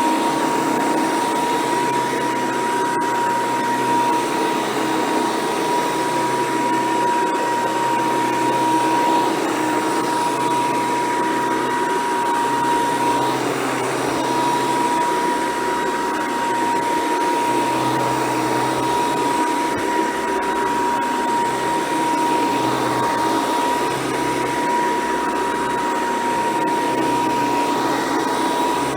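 Hoover Decade 800 convertible upright vacuum cleaner running steadily, a constant high whine over the motor and airflow noise.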